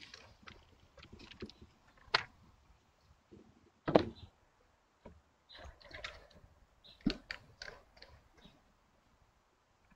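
Typing on a computer keyboard: irregular keystroke clicks, with a louder knock about four seconds in and another near seven seconds.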